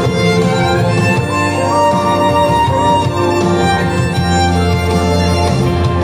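Violin playing a melody in long held notes over a fuller musical accompaniment with a steady bass line.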